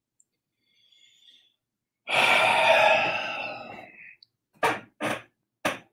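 A man's long, heavy sigh of exasperation, starting about two seconds in and trailing off over about two seconds, followed by three short, sharp sounds near the end.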